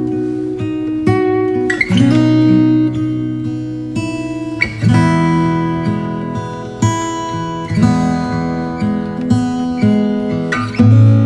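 Background music: acoustic guitar strummed and plucked, with chords changing every second or so.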